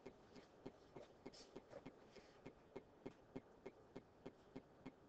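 Near silence with a faint, regular ticking, about three ticks a second.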